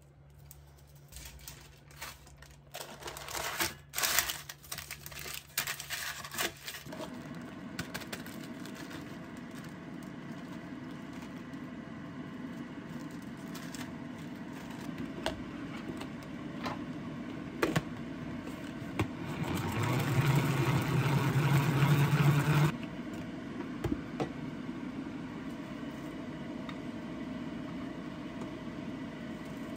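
Kitchen prep sounds. A knife clicks against a cutting board with some rustling for the first few seconds, then a steady low hum sets in. About two-thirds of the way through, a plastic salad spinner whirs loudly for about three seconds, and a few light taps and rustles of salad leaves follow.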